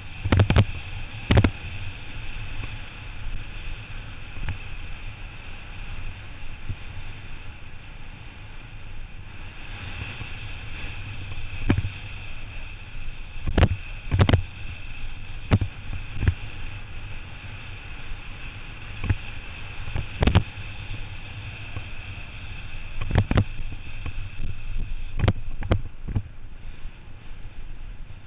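Wind rushing over the microphone and road rumble from a road bike descending at speed, broken by about a dozen sharp knocks at uneven intervals.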